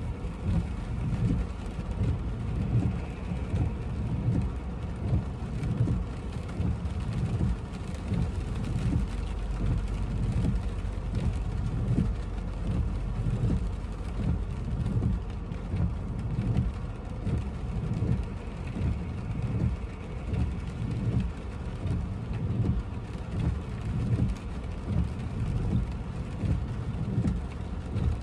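Rain falling on a car, heard from inside the cabin: a steady low rumble with a constantly flickering level.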